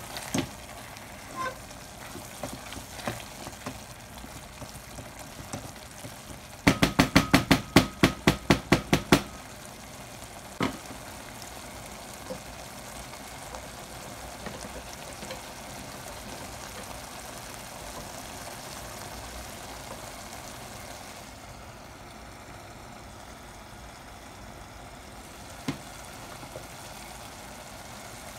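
Ground-meat tomato sauce sizzling steadily in an enamel pot while it is stirred with a wooden spoon, with a few single knocks of the spoon against the pot. About seven seconds in, a fast run of about a dozen knocks, the loudest part, lasts a couple of seconds.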